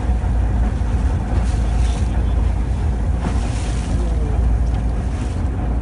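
Fishing boat's engine running steadily, a constant low rumble mixed with wind and sea noise.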